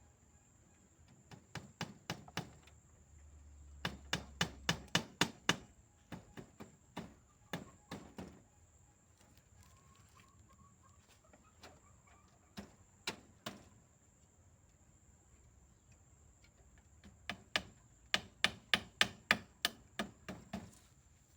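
Hammering: runs of sharp knocks, a few a second, in five short bursts with pauses between, as a chicken enclosure is repaired.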